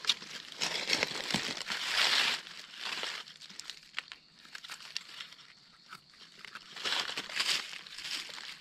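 Dry fallen leaves crunching and rustling in uneven bursts, with sharp crackles, as someone moves through and handles the leaf litter on the forest floor. The sound is busiest in the first three seconds and again about seven seconds in, and quieter in between.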